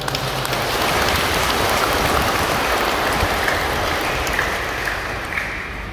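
Audience applauding: a dense patter of clapping that starts suddenly and tapers off near the end.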